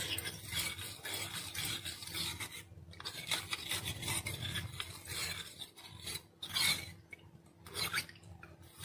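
Metal spoon stirring custard powder and water in a small stainless steel bowl, scraping and rubbing against the bowl's bottom and sides to break up lumps, with a few short pauses.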